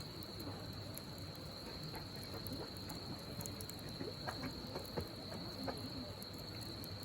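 Crickets trilling steadily on one high pitch, with a few sharp crackles and pops from the burning firewood of a campfire, most of them in the second half.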